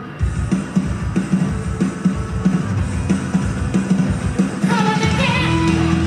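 A rock backing track kicks in abruptly with a steady beat, and about five seconds in a woman's voice starts singing over it through a microphone.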